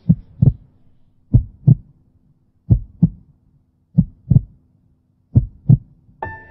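A heart beating slowly and steadily: five lub-dub double beats, about one every 1.4 seconds, over a faint low hum. Soft music comes in just before the end.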